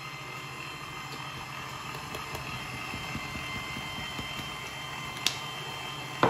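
Electric stand mixer running steadily, its beater turning through a thick batter in a stainless steel bowl, with a motor hum and faint whine. A sharp click about five seconds in and a louder knock near the end.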